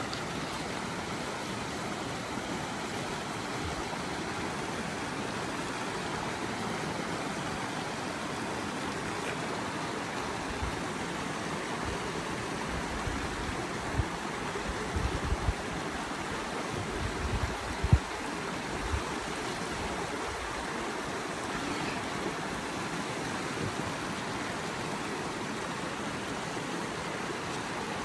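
Mountain creek water running over rocks: a steady rushing. A few low thumps come through in the middle.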